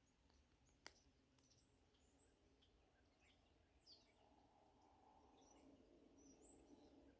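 Near silence, with faint birds chirping in the distance in short high calls and glides, and one faint click about a second in.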